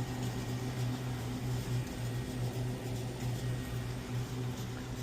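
Steady low machine hum with a faint airy hiss, typical of a commercial freezer's refrigeration unit running.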